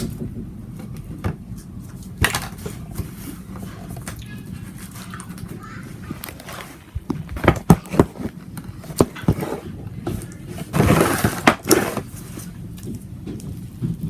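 Slime being squished and poked by hand. From about seven seconds in there is a run of sharp clicks and pops, with a short rustling burst near eleven seconds.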